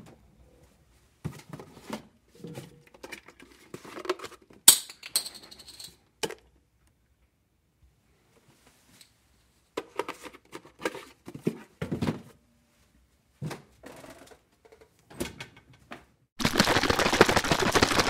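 Juice carton being taken out of a refrigerator: scattered knocks, rattles and handling sounds, with one bright clink a little under five seconds in. Near the end the juice carton is shaken hard, liquid sloshing inside.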